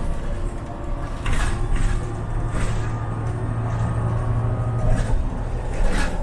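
Interior ride noise of a Neoplan N4522 Centroliner articulated bus under way: a steady engine and road rumble, with a low engine drone between about two and five seconds in, and several sharp rattles and knocks from the body and fittings.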